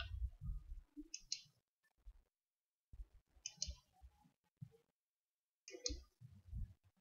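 Faint paired clicks, one pair about every two seconds, each time a digit of a code is entered on an on-screen number pad, with soft low thumps in between.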